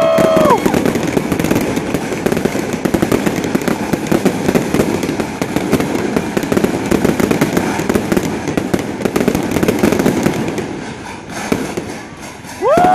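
Pyrotechnic show crackling and popping in a dense, rapid stream of small bangs from sparkling fountains and crackling aerial stars. The crackle thins out near the end. A person close by whoops at the start and again near the end.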